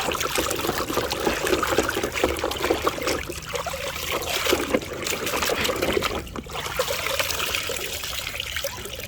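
Water trickling and splashing over a plastic toy truck as it is washed, with small irregular knocks and clicks from the toy being handled.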